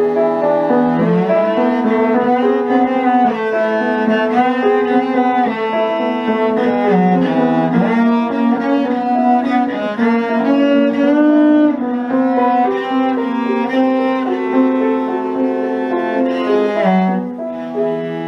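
Cello and piano playing together: the cello bows sustained melody notes over the piano's accompaniment.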